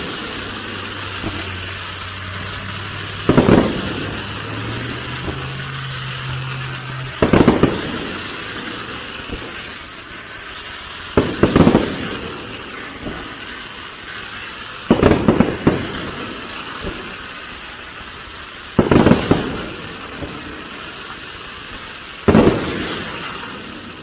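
Fireworks display: six loud booms of bursting fireworks, about one every four seconds, some coming as quick doubles, over a steady background hiss.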